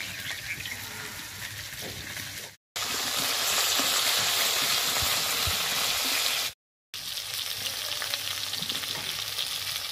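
Turmeric-coated river fish pieces frying in hot oil in a kadai, a steady sizzling hiss with fine crackling. It is softer at first, loudest in the middle, and cuts out twice for a moment.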